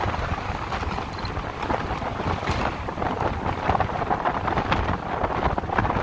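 Wind buffeting the microphone of a rider on a moving electric motorcycle, a gusty rushing noise with low rumble and no engine sound.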